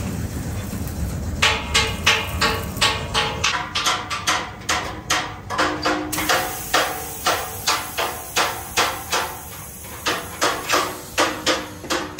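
A rapid run of hammer blows on steel, about three a second, each ringing briefly with a metallic tone. They start about a second and a half in over a low steady rumble and break off briefly near the end.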